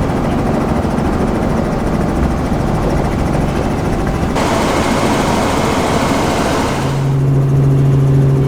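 Steady engine and cabin noise of a running vehicle, changing abruptly twice; in the last second and a half a steady low hum takes over.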